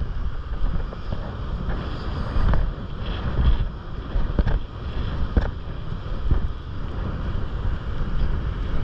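Wind rumbling on a head-mounted GoPro's microphone in the surf, with the wash of small breaking waves and a few sharp knocks.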